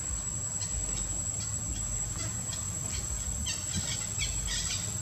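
Steady high-pitched insect drone, like crickets, with a quick run of short high chirps about three and a half seconds in, over a low rumble.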